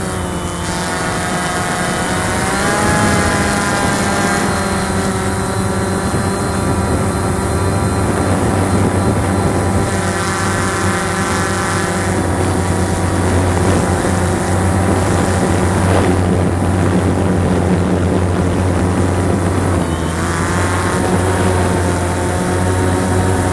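Cheerson CX-20 quadcopter's electric motors and propellers running steadily, heard up close through its onboard camera. The hum's pitch slides up about two seconds in as the drone climbs, and shifts again around twenty seconds in.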